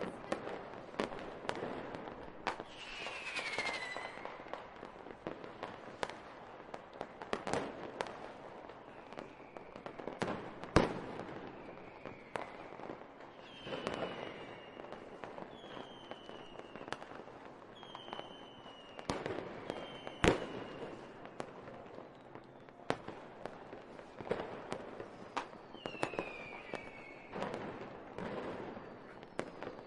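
Fireworks going off: a dense string of bangs and crackles, with two much louder bangs, about a third and two-thirds of the way through. Several short whistles falling in pitch, the largest near the start and near the end, run among the bangs.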